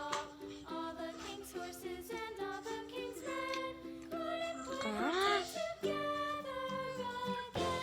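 Upbeat children's background music with bright melodic notes over a steady bass, and a short swooping glide about five seconds in.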